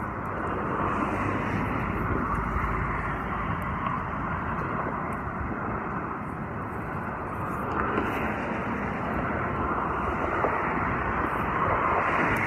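Steady rushing outdoor noise of wind on the microphone and street traffic.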